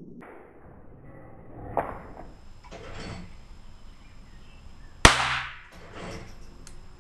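A single sharp sport pistol shot about five seconds in, with a brief ringing tail, fired in duel (rapid-fire) training. A softer knock sounds about two seconds in.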